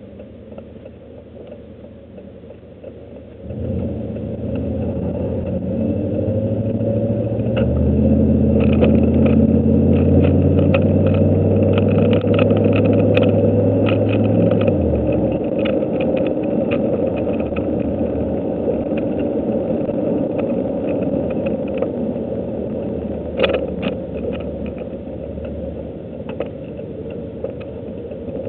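Truck engine heard from inside the cab: a low idle for the first few seconds, then it pulls away and accelerates, the engine note dropping at a gear change about halfway through before settling into steady running. Light scattered clicks and rattles sound over it.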